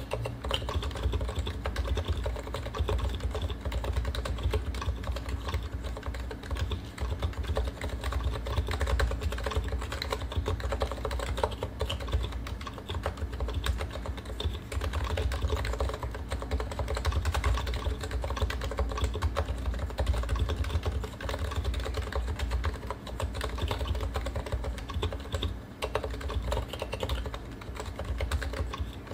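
Continuous fast typing on a stock Realforce R2 PFU Limited keyboard: Topre switches with uniform 45 g rubber domes, silent sliders and stock PBT keycaps. The keystrokes run in a dense, unbroken stream.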